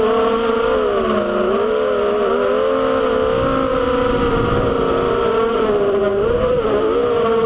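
FPV racing quadcopter's electric motors and propellers whining, the pitch dipping and climbing again and again as the throttle changes through the turns.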